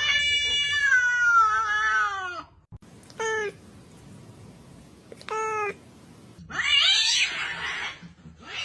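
A cat meowing: one long meow that falls in pitch, two short meows, then a rougher, noisier cry near the end.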